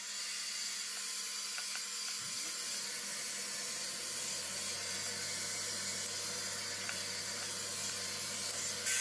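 Hot-air blow-dryer brush running, a steady hiss of blowing air, with a faint low hum joining about halfway through.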